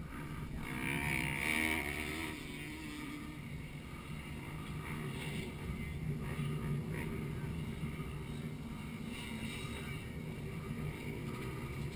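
Motocross dirt bike engines revving on the track, swelling loudest about one to two seconds in as the bikes come past, then running on more steadily.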